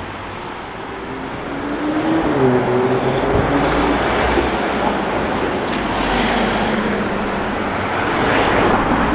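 Road traffic: cars driving past with a steady rush of engine and tyre noise, swelling about two seconds in and again near the end.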